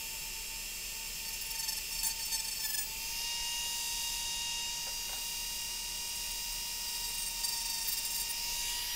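Dremel rotary tool with a small cut-off disc running at a high, steady whine while cutting into the plastic end of a PCIe slot on a riser card. Its pitch sags briefly about two seconds in, then holds steady.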